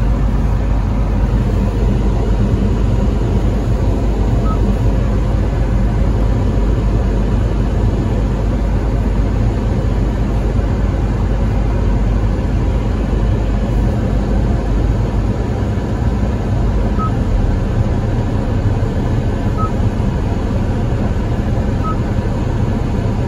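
Steady low rumble of a Kia Sportage 1.6 T-GDI standing with its engine running, heard inside the cabin. Four short faint beeps come from the dashboard as its buttons are pressed.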